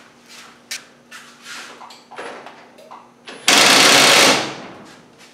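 Screw-drive garage door opener motor starting with a few light clicks, then running loudly for under a second before fading out. The door does not lift because its torsion spring is broken.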